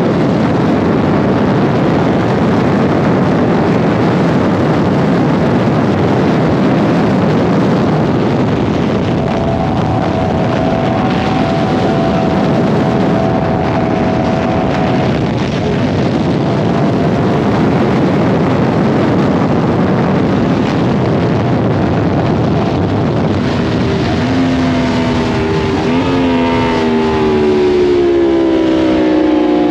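Yamaha MT-10's crossplane inline-four at about 200 km/h, mostly buried under heavy wind rush on the microphone. In the last few seconds, as the bike slows, the engine note comes through and falls in pitch. It jumps up once about 26 seconds in at a downshift, then falls again.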